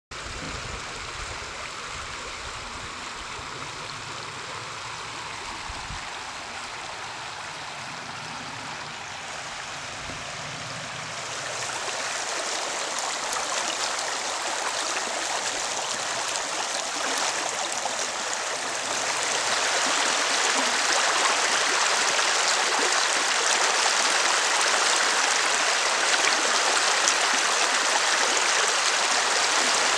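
Steady rushing of running water. It grows louder in two steps, the second about two-thirds of the way through.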